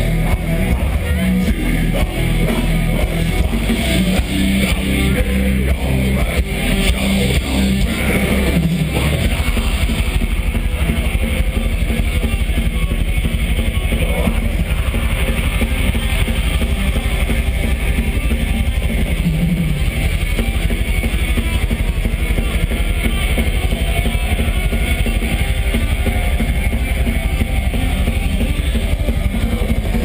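Melodic death metal band playing live through a big festival PA, heard from inside the crowd: distorted guitars, bass and drums. A low, chugging riff of distinct notes gives way about nine seconds in to a fast, driving section with rapid drumming.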